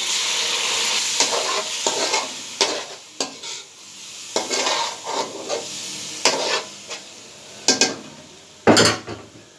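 Water added to hot spiced masala in a karahi, sizzling loudly at first and dying down over the first second or so. A spoon then stirs and scrapes around the pan in short strokes, with a louder knock against it near the end.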